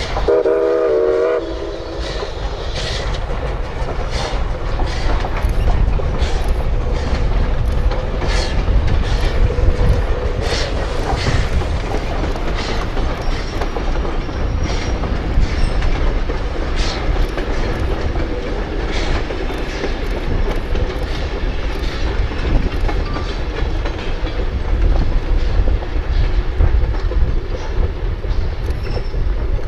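A train running close by. It opens with a brief, wavering signal blast, then a steady heavy rumble with repeated clicks and clanks of the wheels on the rails.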